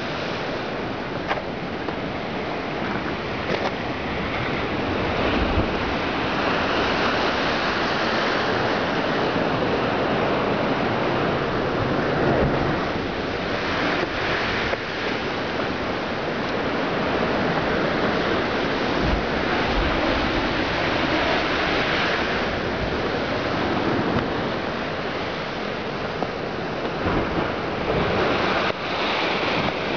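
Ocean surf breaking and washing against a rocky lava shoreline, a continuous rush that swells and eases every few seconds, with some wind on the microphone.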